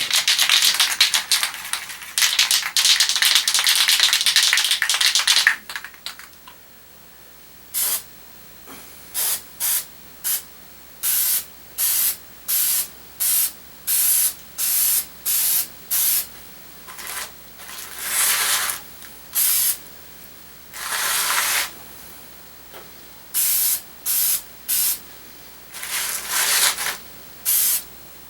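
Aerosol spray paint can spraying: one long continuous spray for about five seconds, then a run of about twenty short squirts with a few longer ones among them.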